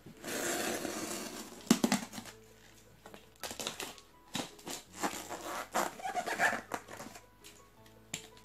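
Utility knife slitting the packing tape along the top of a cardboard shipping box: irregular scraping and tearing of tape and paper label against the cardboard, with a few sharp clicks about two seconds in.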